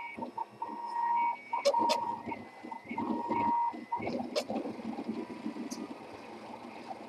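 RepRap 3D printer running a print, its stepper motors singing in short, stop-start tones near 1 kHz that shift in pitch as the head moves, with a few sharp ticks. After about four seconds the tones give way to a rougher whir.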